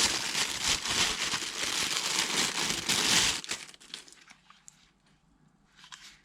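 Packaging crinkling and rustling loudly as a new camera body is unwrapped. It stops about three and a half seconds in, leaving only a few faint handling clicks.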